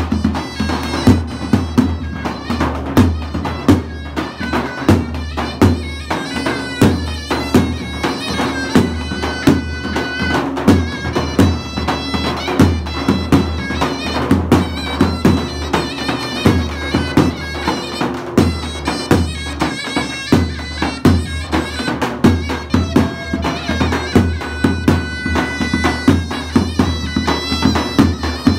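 Mizmar, a double-reed shawm, playing a loud, reedy melody over a large double-headed bass drum beaten with a stick in a steady beat: zaffa wedding music.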